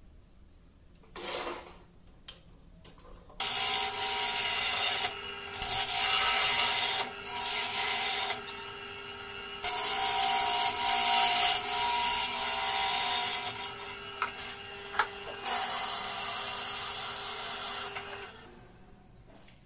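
A wood lathe runs with a steady hum while a turning gouge cuts the face of a segmented Kruing and Sungkai wood blank in several passes, with short pauses between cuts. A few knocks come before the cutting starts, and the cutting stops near the end.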